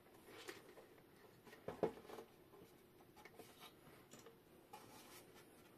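Faint clicks and knocks of a plastic power-station housing being handled and lifted up off its battery pack, the loudest knock a little under two seconds in.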